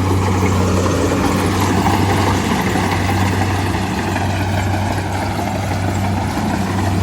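Rice combine harvester running steadily: an even, low engine hum over the constant noise of its working machinery.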